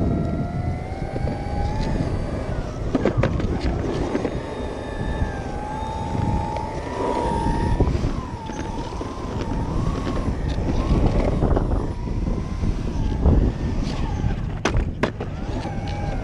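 Single-motor DIY electric skateboard, a 6374 brushless motor driven by a VESC 6, whining as it rides; the whine rises and falls in pitch as the board speeds up and slows. Under it runs the rumble of the wheels rolling on concrete, with a few sharp knocks.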